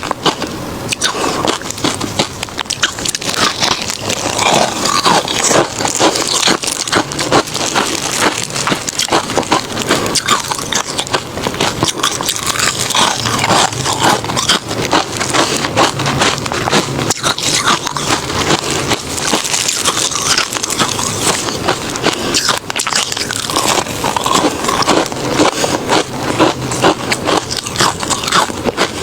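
Refrozen crushed ice being bitten and chewed: continuous, dense crunching and cracking.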